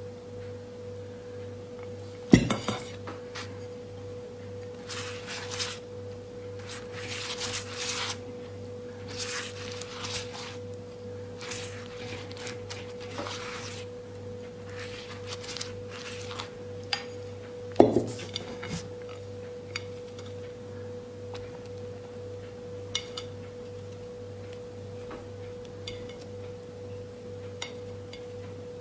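Tableware being handled: a spoon stirring and scraping in a ceramic bowl and dishes being set down, with two sharp knocks, one about two seconds in and another a little past halfway. A steady tone runs underneath throughout.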